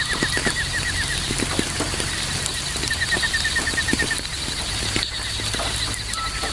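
Steady night rain with scattered drops ticking close by, while a night creature gives quick trains of chirps, twice, over a faint continuous trill.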